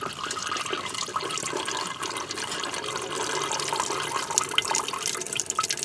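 Engine coolant draining steadily from the disconnected coolant pipe at the thermostat housing of a 1998 Chevrolet Cavalier's 2.4 twin-cam engine, splashing into a bucket.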